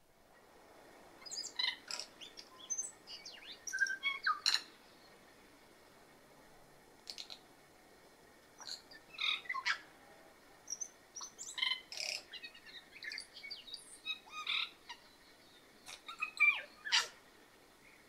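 Tui singing: phrases of sharp clicks, short whistles and quick chiming notes, with a pause of a few seconds in the middle.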